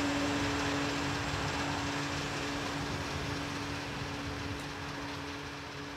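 Filling-station fuel dispenser running as diesel is pumped into a vehicle's tank: a steady hum with a rushing hiss of flowing fuel, slowly fading.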